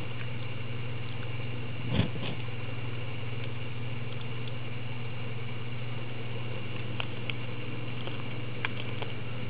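Steady low mechanical hum, with one thump about two seconds in and a few faint clicks later on.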